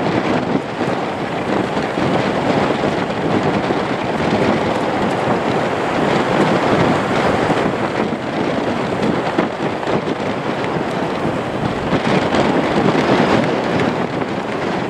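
Wind buffeting the microphone over the steady running of a Lockheed Martin C-130J Hercules turboprop as it taxis on two of its four engines.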